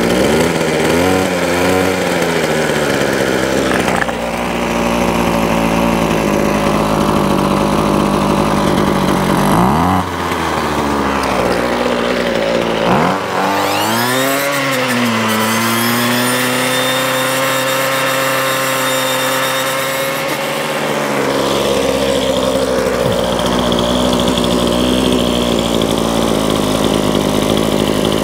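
Ryobi two-stroke strimmer engine running, revved up and dropped back several times. It holds high revs for about five seconds in the middle, then settles to a lower speed. It is now running strongly, after its carburettor fuel hoses were put back on the right way round and the tickover was reset.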